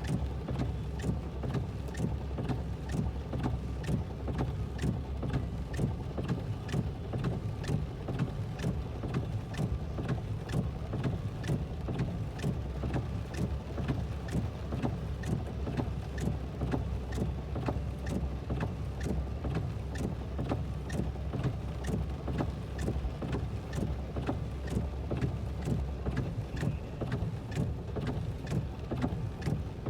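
Rain heard from inside a vehicle: a steady low rumble with many scattered sharp ticks of raindrops striking the roof and glass.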